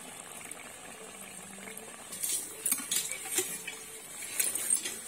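Metal spoon clinking against a steel bowl: a few separate sharp clinks start about two seconds in.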